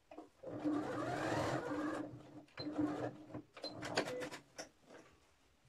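Computerized domestic sewing machine stitching a seam in three short runs, the motor starting and stopping between them, with a few clicks near the end.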